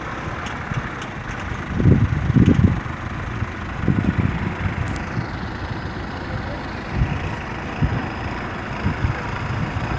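Dump truck's diesel engine running steadily, its tipper bed raised after unloading soil, with several loud low thumps, the strongest about two seconds in.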